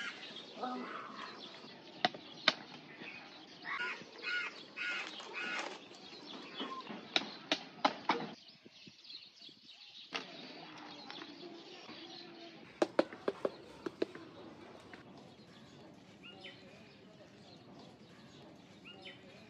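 Leaves and branches rustling as ripe jackfruits are twisted off the trunk by hand, with sharp cracks in small groups a few seconds apart as the fruit stalks snap. Birds chirp faintly in the background.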